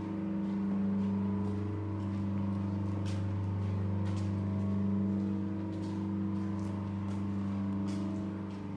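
A steady low motor hum, like an engine running, that swells and eases slightly without stopping. Faint footsteps on stone paving tick over it.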